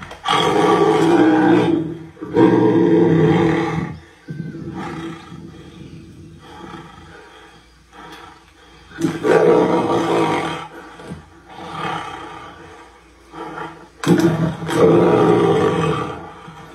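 Tigers roaring as they fight, in about four loud roars of one to two seconds each with quieter stretches between.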